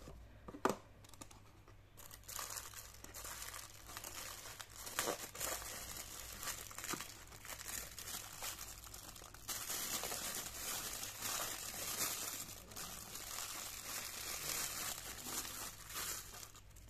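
Clear plastic wrapping bag crinkling and rustling as a wristwatch is unwrapped from it. The crinkling starts about two seconds in and gets louder about halfway through. A sharp click comes less than a second in.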